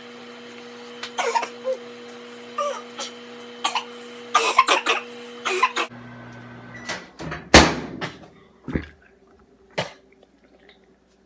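A person coughing and hacking repeatedly on a mouthful of dry ground cinnamon, the choking the cinnamon challenge brings on. A steady hum, from a running microwave oven, stops about seven seconds in, and one loud sudden burst comes soon after.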